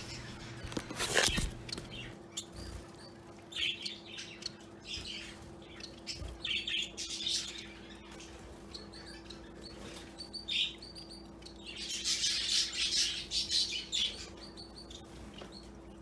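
Small pet finches chirping in short scattered bursts, then a busier stretch of chatter near the end, over a faint steady hum. A sharp knock about a second in.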